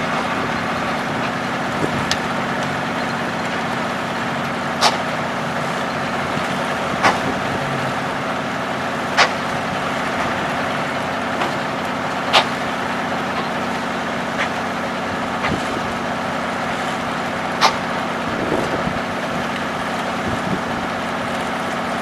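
An antique circular sawmill's drive engine running at a steady speed, with the saw not cutting. Sharp clicks or knocks sound every few seconds, about six times.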